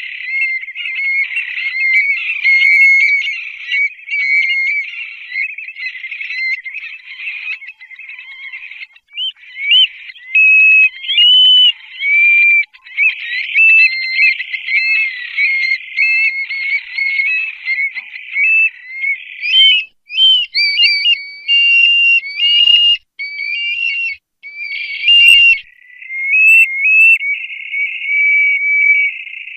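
Stone-curlews calling: a dense, loud run of high whistled notes, many sliding up or down, overlapping and repeated without pause.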